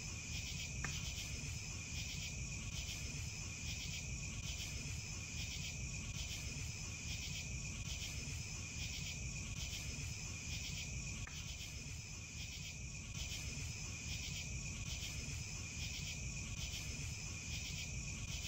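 Night insect chorus: crickets chirping in a steady rhythm of about two pulses a second over a constant high trill, with a low rumble beneath.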